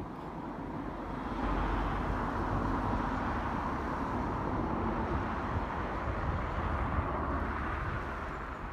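A passing vehicle: a steady rushing noise with a low rumble that swells up about a second and a half in and eases off near the end.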